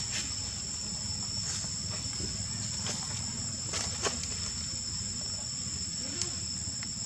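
Insects droning steadily at a high pitch, with two held tones, over a low rumble and a few faint clicks.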